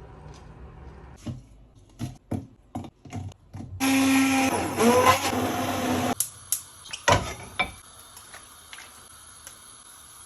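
Kitchen work sounds: several knocks and clicks, then a small electric kitchen appliance motor runs loudly for about two seconds and stops, followed by a few more knocks.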